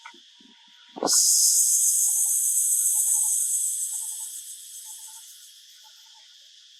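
A loud, steady high-pitched hiss starts with a click about a second in and fades out gradually over the next few seconds.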